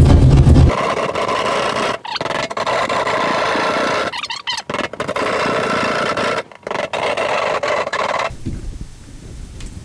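Hand drywall jab saw sawing through sheetrock, a continuous scraping sound with a few short breaks that stops about eight seconds in. It opens with a loud low rumble for the first moment.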